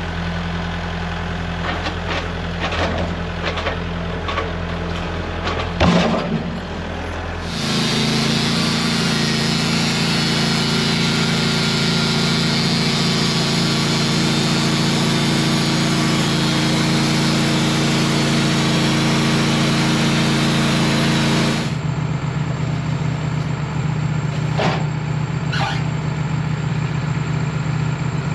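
Wood-Mizer portable bandsaw mill: the engine runs steadily, then about seven seconds in it speeds up and the band blade cuts through the log for about fourteen seconds, a steady hiss over the engine, before the engine drops back to a lower, steady run. A knock before the cut and two sharp clicks near the end.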